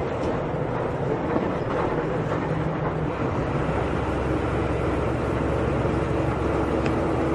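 Volkswagen Volksbus 17.230 EOD bus running on the road, a steady engine drone with road noise. The low engine note grows stronger about three seconds in, as if pulling under more load.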